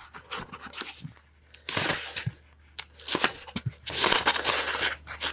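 Pages of a thick paperback book being flipped and riffled by hand: a run of papery flicks and rustles, loudest about four seconds in.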